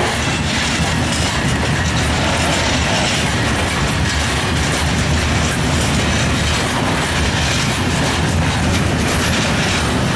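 Freight train rolling past slowly: heavy steady diesel locomotive engine sound with the rumble and clatter of loaded wagon wheels on the rails.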